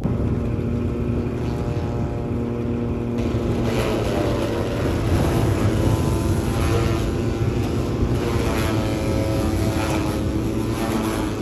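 Small petrol engine driving a forage chopper, running steadily under load as dry stalks are fed in and chopped.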